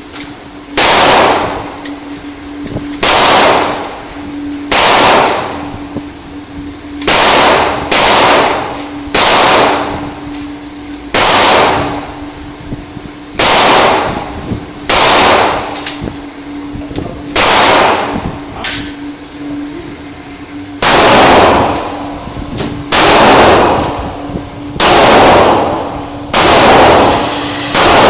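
Glock 9mm pistol fired about fourteen times at an unhurried pace, one shot every one to three seconds, each a sharp report with a short echo. A steady low hum runs underneath.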